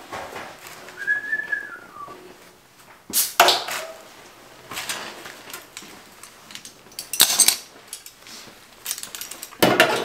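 Short scratchy scraping strokes on sheet metal as a new steel fender patch panel, clamped in place, is traced along its edge: the loudest about three seconds in, others about seven seconds in and near the end. About a second in, one short high whistle rises slightly, then falls away.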